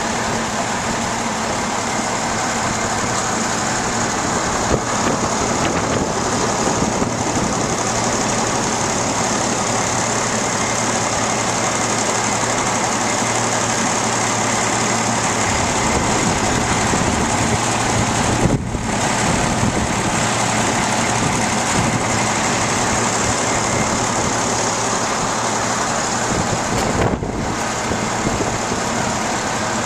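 A large vehicle engine idling steadily: a constant low hum over even outdoor noise, broken by two brief dips.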